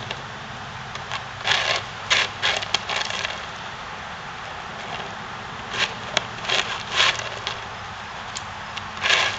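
Plastic frisbee scraping on asphalt as a dog paws and bites at it, failing to get it off the flat surface. The scraping comes in two bunches of short rasping strokes, over a steady low hum.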